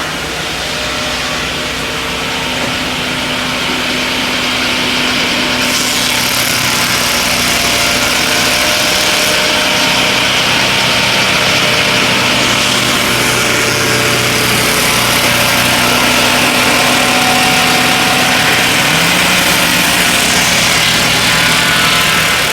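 TurboSawmill M12 swing-blade sawmill running, its engine droning steadily while the circular blade saws through a log. The high sawing hiss gets much louder about six seconds in, and the engine note steps up slightly near the end.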